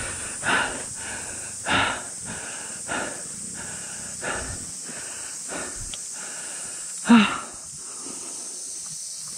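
A person panting heavily, out of breath, drawing a breath about every second and a quarter. A louder, voiced gasp comes about seven seconds in.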